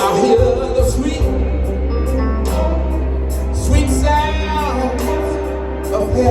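Music: a song with singing over a steady beat, with strong bass and sustained held chords, and a sung line that slides in pitch about four seconds in.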